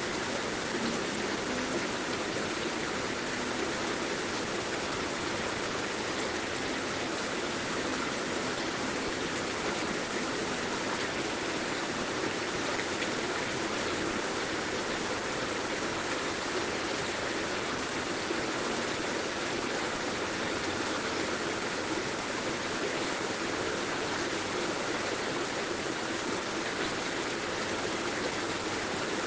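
Heavy rain falling steadily: an even, unbroken hiss of rain with no gaps or changes in level.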